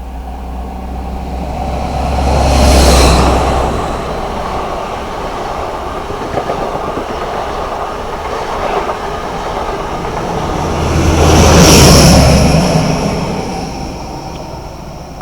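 A train passing. Its noise swells to a loud peak about three seconds in and again near twelve seconds, each peak carrying a deep rumble, with a steady rolling wheel noise between them.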